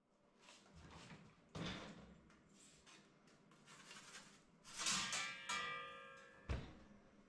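Perforated metal pizza peel scraping and clattering against the mouth of an electric countertop pizza oven as the pizza is slid in, with a brief metallic ringing as the peel is pulled out. The oven door then shuts with a sharp thud near the end.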